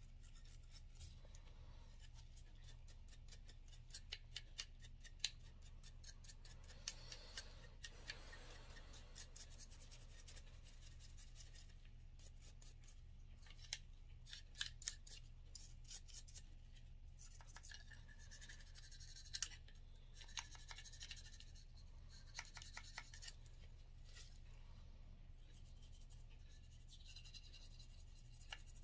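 A cleaning brush scrubbing a Walther CCP pistol frame: faint, quick scratching strokes in several runs, with a few sharper clicks as the brush or part knocks.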